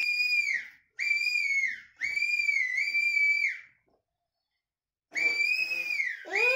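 High whistle notes blown through a small balloon: several notes at a nearly steady pitch, each ending in a quick downward slide, with a gap of over a second in the middle. Near the end a lower squeak glides upward under the whistle.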